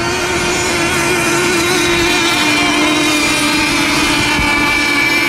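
Radio-controlled racing boats running at speed, their motors making a steady whine whose pitch dips slightly about halfway through.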